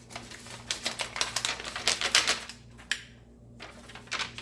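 Paper or plastic packaging being handled and crinkled: a quick, dense run of crackling clicks for about two and a half seconds, then a single click, and a louder snap at the end.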